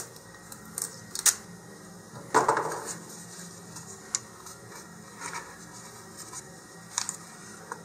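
Masking tape pulled from the roll and torn off, a short rasp a little over two seconds in. Light clicks and paper handling follow as the strip is pressed onto a paper wrap.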